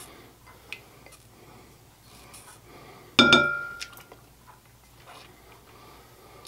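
A spatula scraping melted butter out of a small ceramic dish over a bowl, with faint handling sounds and one sharp, ringing clink of the spatula against the dish about three seconds in.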